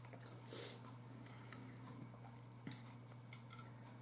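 Faint eating sounds: soft chewing and a few light clicks of a fork picking at pork roast on a plate, over a steady low hum.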